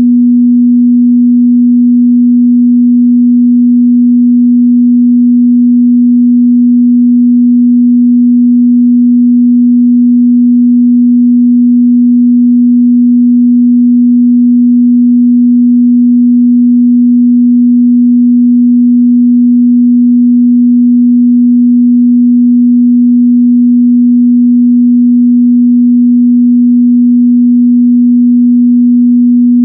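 Steady 243 Hz pure sine-wave test tone, a single unchanging low-mid hum used to check speaker and headphone frequency response.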